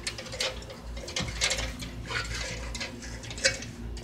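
Footsteps crunching on dry grass and dirt at a walking pace, a sharp crackle every half second or so, over a low steady hum.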